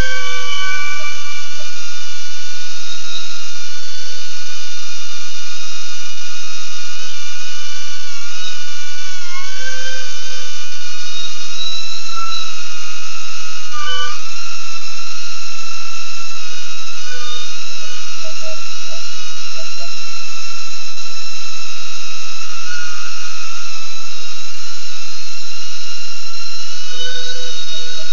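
BetaFPV Aquila16 FPV quadcopter's brushless motors and propellers whining steadily in flight, several close pitches moving together and dipping briefly a few times as the throttle changes.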